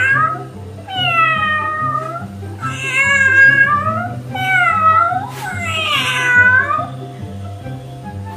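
A cat meowing: about five long, drawn-out meows, each around a second, over background music with a steady beat.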